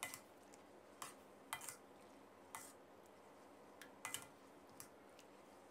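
Faint, scattered clinks, about half a dozen, of a wire-mesh strainer knocking against a metal pot while thin rice noodles are stirred in hot water.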